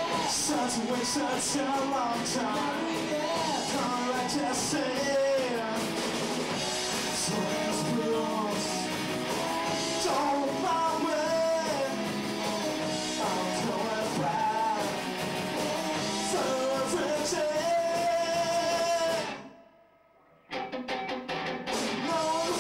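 A live rock band playing a song: electric guitars and drums with a singer. About three seconds before the end the sound suddenly cuts out for about a second, then the band comes back in.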